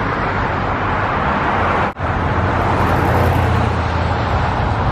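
Road traffic going by close at hand: a steady rush of tyre and engine noise, with a deeper engine hum from a heavier vehicle swelling in the second half. The sound drops out for an instant about two seconds in.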